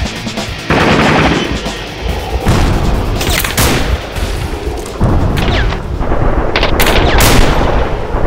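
Gunfire in a firefight: repeated rifle shots and short bursts, some overlapping, with heavy booming impacts between them.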